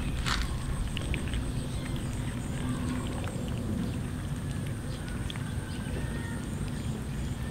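Several cats eating cooked rice off a metal tray: small scattered clicks and smacks of chewing and licking over a steady low rumble.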